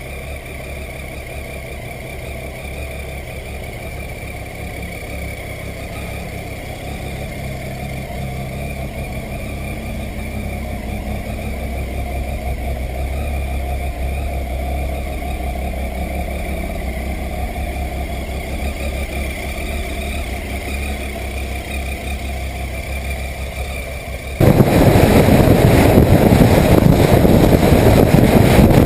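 Motorcycle engine running steadily on the road, slowly growing louder. About 24 seconds in it gives way suddenly to a much louder rushing noise.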